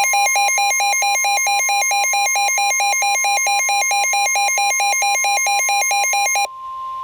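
NOAA Weather Radio warning alarm tone: a steady 1050 Hz tone, with a harsh pulsing alarm beep of about four beeps a second over it. The beeping stops near the end and the steady tone goes on alone, signalling that a warning follows.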